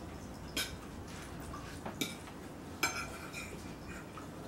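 A metal fork clinking and scraping against a plate of food: three short, sharp clinks about a second apart, with quiet room sound between.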